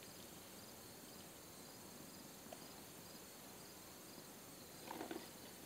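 Quiet outdoor ambience with faint, steady insect chirping high up, and a brief faint rustle about five seconds in.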